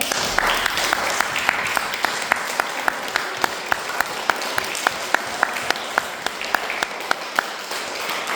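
Audience of young children applauding in a hall, with one loud clapper near the microphone keeping an even beat of about four claps a second that stops about a second before the end.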